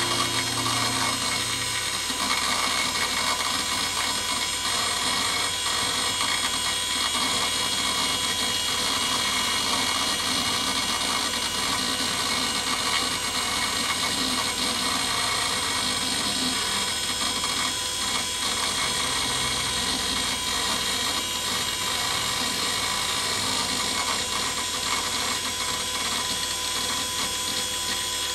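Old Pentium III desktop PC running steadily as Windows ME loads, its cooling fans and hard drive whirring with a high-pitched whine over a low hum.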